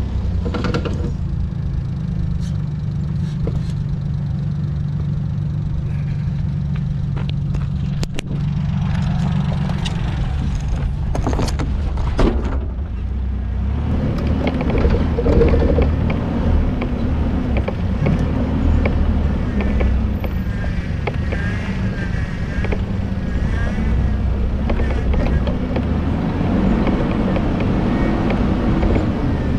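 Off-road SUV engine running as it drives over rough ground: a steady low drone at first, with a few sharp knocks about two-thirds of the way through the first half. Then from about 13 s in, the revs rise and fall as the engine works.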